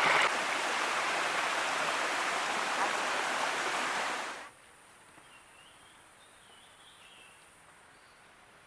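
Steady rushing of a stream or small waterfall. It cuts off abruptly about four and a half seconds in, leaving a quiet outdoor background with a few faint high chirps.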